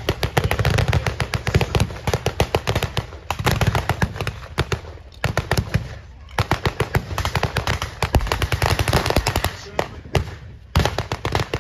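Blank-firing machine guns and small arms in a mock battle: rapid bursts of sharp cracks with a few brief lulls, over a low rumble.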